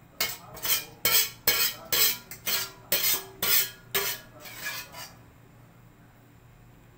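A spoon scraping the last of the coconut-milk sauce out of a pan over the fried catfish, in about ten quick scrapes. The scraping stops about five seconds in.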